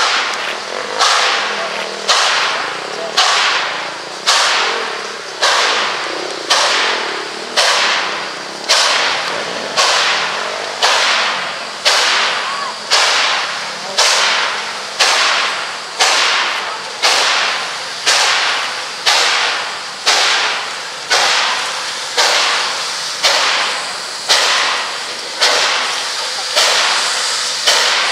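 Nickel Plate Road 765, a 2-8-4 Berkshire steam locomotive, working out of the yard with its train: a steady beat of exhaust chuffs a little under one a second, each a sharp burst of hiss that fades before the next.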